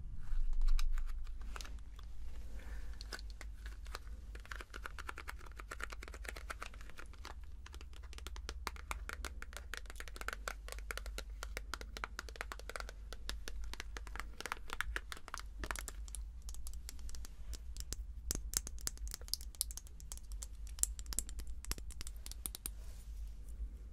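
Long fingernails tapping and scratching on the small cardboard-and-plastic box of an eye gloss, with crinkling packaging as it is handled and opened, then clicks on the gloss tube itself. The taps come quickly and keep going throughout.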